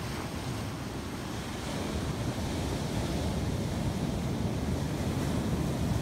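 Ocean surf washing onto the beach, a steady rushing that grows a little louder about two seconds in, with wind buffeting the microphone.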